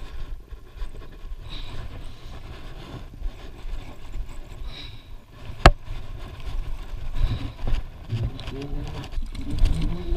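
Low, uneven rumbling on the camera's microphone, with one sharp click about halfway through.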